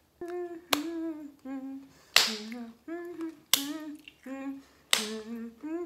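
A woman humming a short tune of held notes while snapping her fingers to the beat, four sharp snaps about a second and a half apart.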